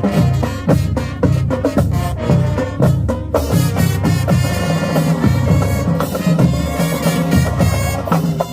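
Marching band playing: the drumline drives alone for about three seconds, then the brass section comes in with full held chords over the drums.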